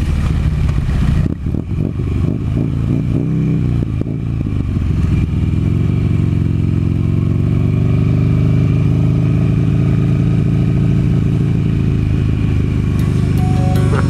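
Buell Firebolt's air-cooled V-twin engine running under way in heavy rain, with gusts of wind and rain noise on the microphone over the first few seconds. The engine pitch shifts about three seconds in, then holds steady at cruise. Music starts near the end.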